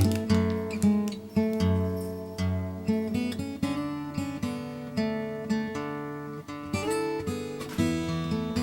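Background music: acoustic guitar plucked and strummed in a gentle tune, each chord ringing out before the next.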